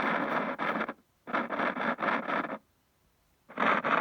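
Sony ST-4950 FM tuner's 'swishy sound' through the speaker: swishes of static that come in three bursts of about a second each, cutting to dead silence in between. The tuner makes this sound when tuned to the left part of the dial, the fault it is awaiting repair for.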